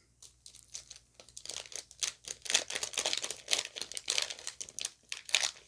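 Foil Pokémon booster pack wrapper crinkling and crackling in a dense run of short bursts as it is handled and opened.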